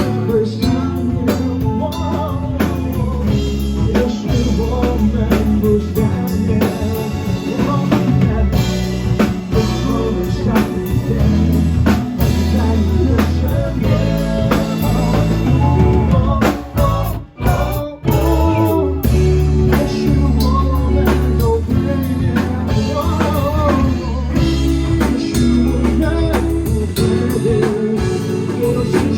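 Live band music: drum kit and guitar playing with a singing voice, with a brief break about two-thirds of the way through before the band comes back in.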